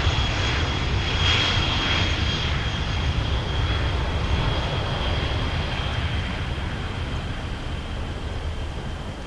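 The four turbofan engines of a Kawasaki P-1 maritime patrol aircraft run with a steady rush and a high whine, the sound slowly fading.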